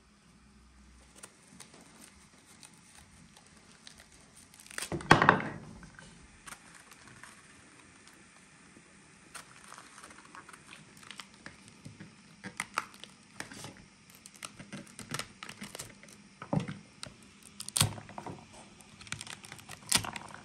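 Hands tearing and handling food: scattered light clicks and short rustles, with one much louder rustle lasting about half a second about five seconds in.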